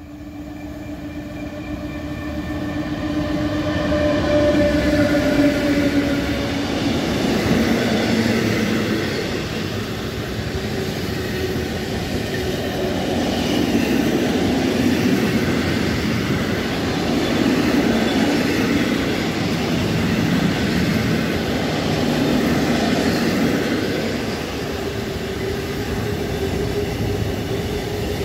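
ET22 electric locomotive approaching and passing at speed with a freight train of tank wagons, the wheels rolling and clattering over the rails. A steady whine sounds in the first few seconds as the train comes closer, and the rumble builds over about four seconds, then holds with slow swells as the wagons roll past.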